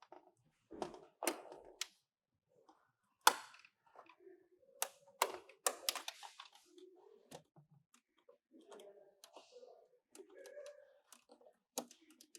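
Irregular plastic clicks and knocks from handling a car door card and unplugging its electrical connectors, with a sharp knock about three seconds in.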